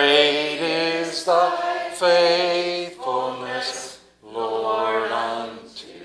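A man singing unaccompanied, holding notes in several short phrases with brief breaks between them.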